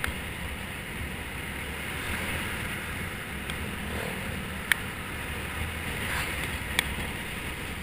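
Motor scooter engine running steadily at riding speed, with wind rushing over the action camera's microphone. Two sharp clicks, one a little before five seconds in and another about two seconds later.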